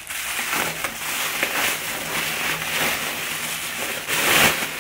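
Plastic bubble wrap crinkling and rustling as it is unwrapped by hand, with a louder rustle about four seconds in.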